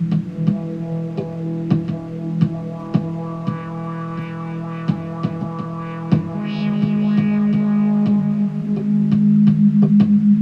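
Synth ambient retro trance music: sustained synthesizer chords over a low bass note with a steady light beat, the harmony changing about six seconds in.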